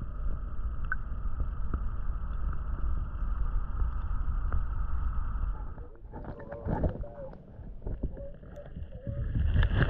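Muffled underwater sound through a GoPro's waterproof housing held in a flowing river: a steady low rumble of moving water. About six seconds in it breaks up into irregular knocks and bumps, with a louder burst near the end.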